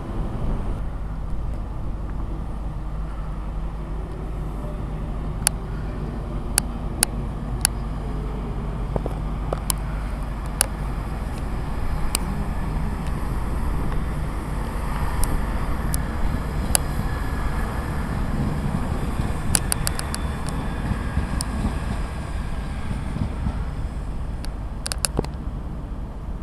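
A train running through the station: a steady low rumble that swells in the middle, with scattered sharp clicks.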